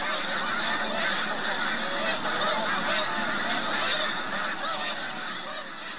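A large flock of snow geese and tundra swans calling at once: a dense, unbroken din of many overlapping honks, fading near the end.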